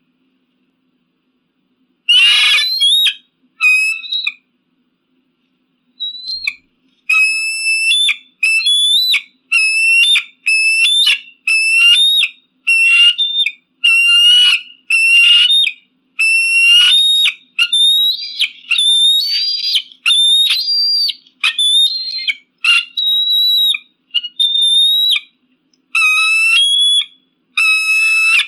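Eagle calling: a long run of short, high-pitched piping notes, one to two a second, each dropping in pitch, preceded by a single harsher scream about two seconds in.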